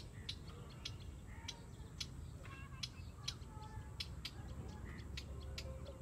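Birds calling around a lake: a run of short, sharp high chips two or three times a second, with a few thin wavering whistled notes, over a low rumble.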